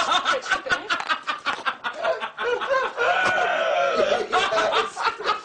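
Several men laughing hard together, with high cackling laughs and short shouts.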